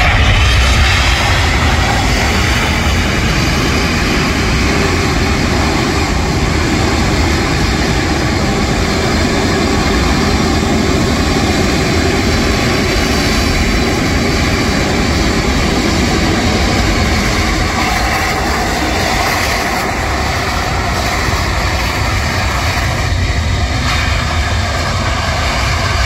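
US Air Force C-17 Globemaster III's four turbofan engines running loud and steady as the transport rolls along the runway, a whine over a deep rush.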